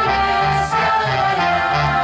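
A group singing an anthem together with recorded accompaniment played through loudspeakers, the sustained sung notes carried over a pulsing low bass line.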